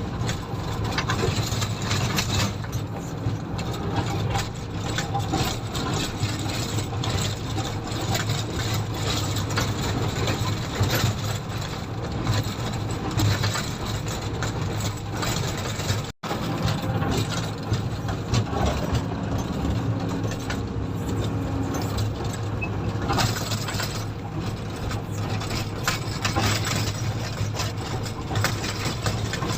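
Komatsu motor grader's diesel engine running steadily while the machine works, with frequent clicks and rattles over the hum. The sound cuts out for a split second about sixteen seconds in.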